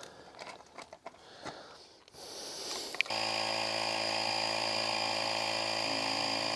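A few faint handling clicks, then about three seconds in a portable electric tyre inflator clicks on and runs steadily, pumping up a motorcycle's rear tyre that has just been plugged after a puncture.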